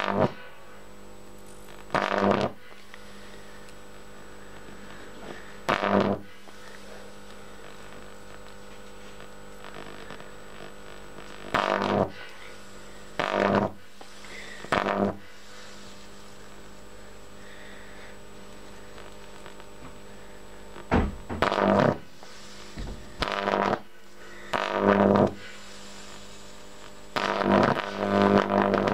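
High-voltage arc from a resonant microwave oven transformer buzzing across a spark gap in about a dozen short bursts, each under a second long, with a low steady hum between them. The ethanol flame under the gap ionises the air, letting the arc jump more than 2 cm where it would otherwise jump only about 2 mm.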